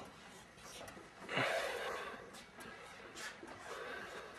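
Homemade beer-can Stirling engine and its big cardboard-bladed fan being spun over by hand, the mechanism giving faint irregular clicks, with one loud breathy whoosh about a second and a half in.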